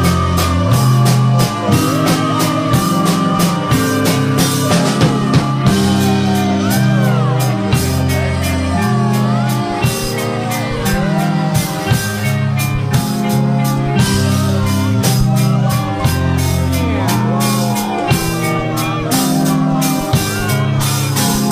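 A screamo/hardcore punk band recording playing loud and fast: distorted guitars, bass and drums with busy cymbal hits, the bass line moving to a new note every second or so.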